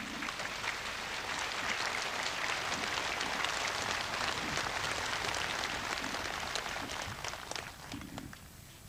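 Large crowd applauding: dense, steady clapping that dies away near the end.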